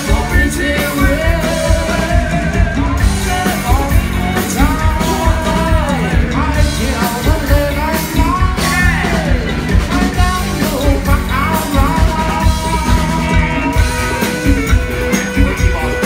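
Live rock band playing: a singer's voice over electric guitar and a drum kit keeping a steady beat, loud throughout.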